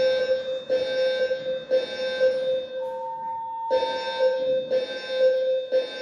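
Building fire alarm sounding its evacuation signal, sounded as part of a fire alarm test: a loud pitched alarm tone pulsing three times about a second apart, a short pause, then three more pulses (the temporal-three pattern).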